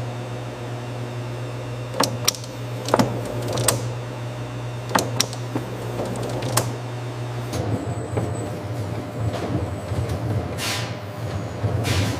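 Bakery production-line machinery running with a steady low hum, broken by scattered sharp clicks and clanks in the first half and a couple of short hisses near the end.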